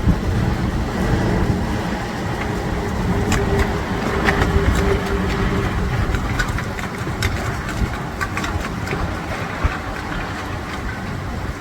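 Heavy wind buffeting the microphone in a rainstorm: a steady low rumble with many sharp ticks scattered through the middle.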